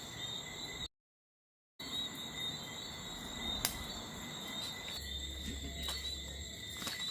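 Night insects trilling steadily at several high pitches, with a few sharp clicks. The sound drops out completely for under a second about a second in.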